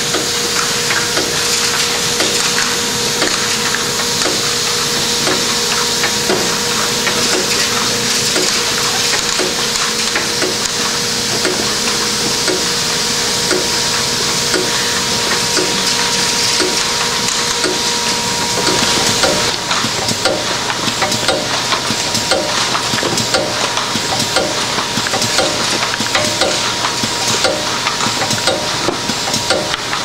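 Intermittent lid plugging machine running: a steady hiss and hum with a regular clicking cycle. About two-thirds of the way through one hum drops out and the machine's rhythm changes.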